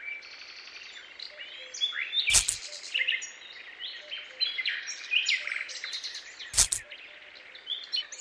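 Small birds chirping and twittering continuously in a rural ambience, with two sharp knocks about two and a half and six and a half seconds in.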